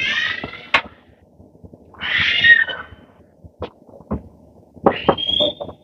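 Three short high-pitched, voice-like cries, the last one rising, over scattered clicks and knocks from a glass-fronted lift-up wall-cabinet door being opened and handled.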